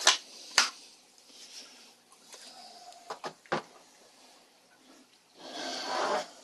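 Knives and sheaths being handled on a table. A blade is laid down with two sharp knocks at the start, a few light clicks come about three seconds in, and there is a brief rustle near the end as a sheathed knife is picked up.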